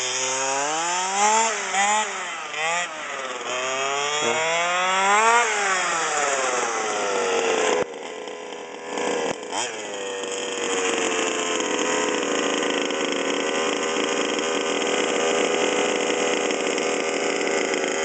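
Two-stroke gasoline engine of a 1/5-scale Redcat rally RC car with an expansion pipe, revving up and down again and again as the car is driven. About eight seconds in it drops off briefly, then settles to a steady idle.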